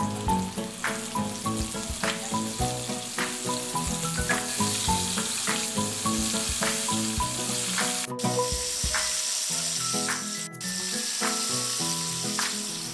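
Flour-dredged shrimp deep-frying in hot oil, a steady sizzle that breaks off briefly twice in the second half. Light plucked background music plays underneath.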